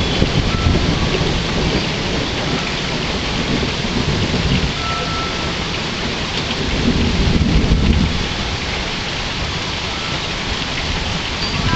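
Steady rain falling during a thunderstorm, with low rolling thunder that swells about two-thirds of the way through.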